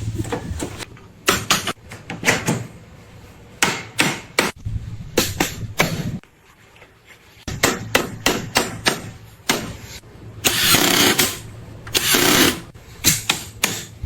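Hammering on bamboo: sharp knocks in quick clusters of several blows, with pauses between them. Two longer noisy passes come a little after ten seconds in and again about twelve seconds in.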